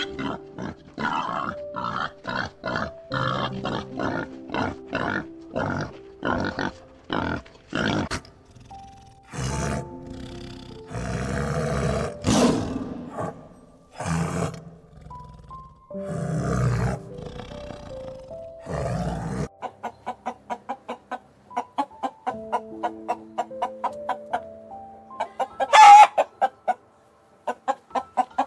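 Young boars grunting in quick succession, then a tiger growling and roaring in several long bursts, then hens clucking rapidly with one loud call near the end. Soft instrumental background music with slow held notes plays throughout.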